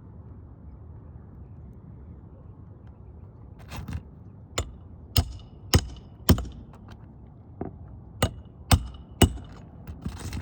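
Hammer blows driving roofing nails under the upper shingle course through a roofing snake: sharp metallic strikes about twice a second, in two runs of about five, starting a few seconds in.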